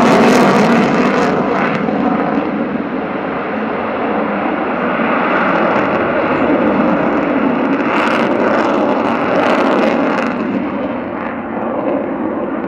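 Sukhoi Su-27P jet fighter's twin turbofans during a display pass. The jet noise is loudest at the start, its high hiss falls away after about a second as the aircraft moves off, and it swells again briefly near eight and ten seconds in.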